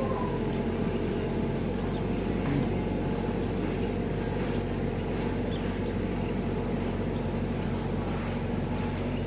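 Kubota U50 mini excavator's diesel engine running steadily at a constant speed.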